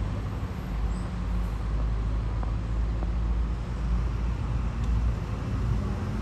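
Steady low rumble of road traffic, with a steady engine hum underneath.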